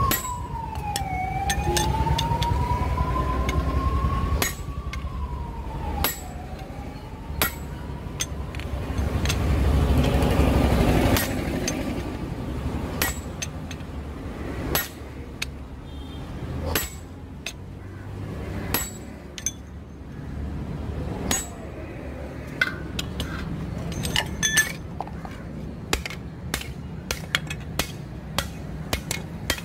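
Hand hammer striking red-hot leaf-spring steel on an anvil: single blows at uneven intervals, with quicker runs of blows near the end. A siren wails, rising and falling, for the first several seconds, and a low rumble swells and fades about ten seconds in.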